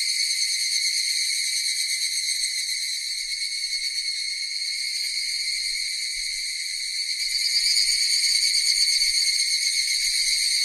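Cicadas buzzing in one steady, high-pitched chorus, growing a little louder about seven seconds in.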